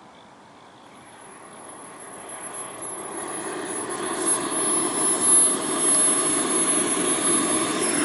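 Skymaster T-38 Talon RC model jet running, its rushing engine noise growing louder over the first few seconds and then holding steady, with a thin, high whine from about a second in.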